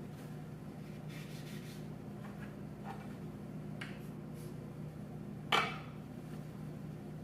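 Light handling knocks and taps of metal objects, with one louder sharp metallic clink about five and a half seconds in, over a steady low hum.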